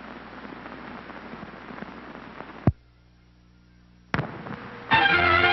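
Crackle and hiss of an old film soundtrack, thick with small clicks, broken by a sharp loud pop about two and a half seconds in. Over a second of near silence with a faint hum follows, then another click, and music starts near the end.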